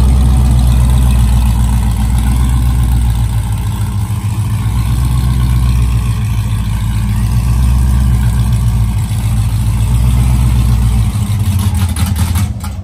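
Supercharged LSA 6.2-litre V8 car engine idling loudly and steadily, with a deep, even exhaust note.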